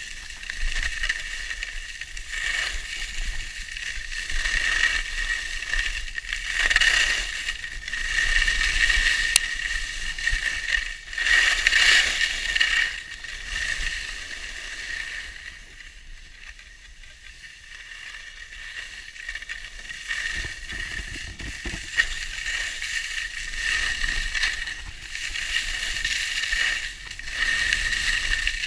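Skis hissing and scraping over packed snow through a run of turns, swelling and fading with each turn. The sound dies down for a few seconds just past the middle.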